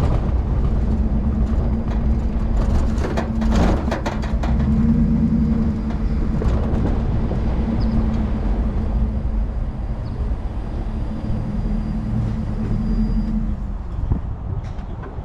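Chevy Silverado 1500's 5.3-litre V8 running through a Flowmaster 40 Series muffler: a steady exhaust drone over low rumble. The pitch dips briefly about three and a half seconds in, and the drone fades near the end.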